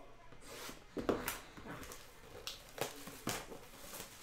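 Plastic shrink wrap crinkling and tearing as it is ripped off a trading-card box, in several sharp crackles, the loudest about a second in.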